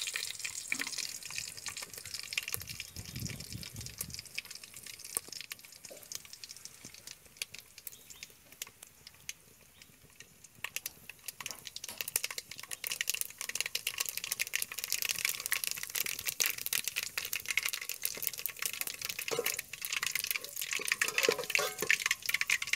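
Mustard seeds frying in hot oil in a pan as the tempering for sambar: a crackle of tiny pops over a sizzle. It thins out in the first half, then turns thick and loud from about halfway as the seeds splutter.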